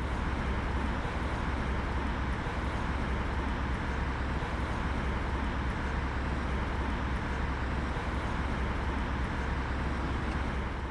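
Steady traffic noise with a deep, even rumble.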